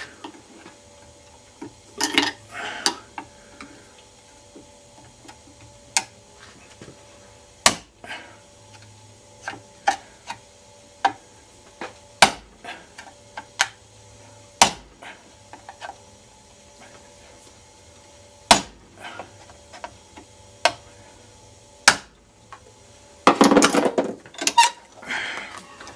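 Hammer tapping a 1-inch chisel into the seam of a plastic laptop charger case held in a bench vise: about ten sharp single taps, irregularly spaced a second or more apart. Near the end a louder spell of handling noise as the case halves come apart.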